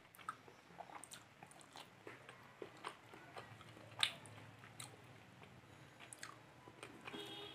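Faint close-up eating sounds: chewing and mouth smacks, with fingers mixing rice and curry against a steel plate. Scattered short clicks, the sharpest about four seconds in.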